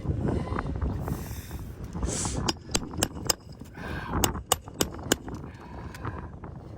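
Wind buffeting the microphone as a low rumble, with a quick run of sharp clicks and taps in the middle.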